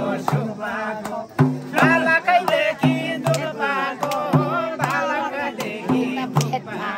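A Tamang damphu frame drum beaten in a steady rhythm of low strokes, mostly in pairs, with hand clapping and voices singing over it.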